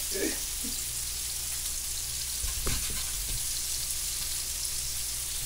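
Hamburger patties sizzling as they brown in a hot cast-iron skillet, a steady hiss of frying fat, with a few low knocks about two and a half seconds in.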